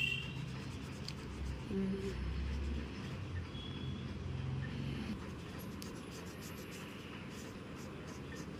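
Felt-tip marker strokes scratching across sketchbook paper as colour is filled in, over a steady low background rumble.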